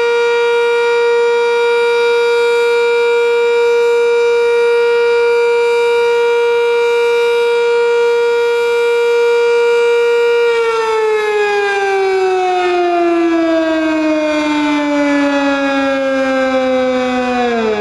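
Sentry 3V8-H outdoor warning siren holding a steady tone, then about two-thirds of the way through beginning to wind down, its pitch falling smoothly before dropping sharply near the end. The sharp pitch drop on wind-down is the sign of a single-phase motor.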